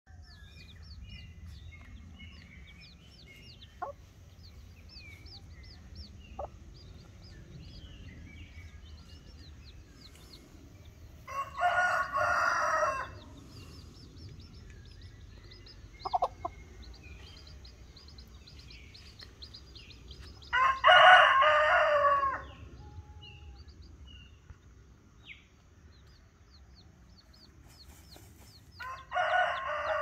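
A rooster crowing three times, about nine seconds apart, each crow lasting about two seconds. Between the crows, chicks keep up a run of faint, high, short peeps.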